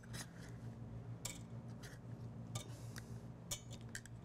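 A wire whisk scraping and tapping against a small plastic cup and a stainless steel mixing bowl while softened gelatin is scraped out: a few faint, scattered clicks over a low steady hum.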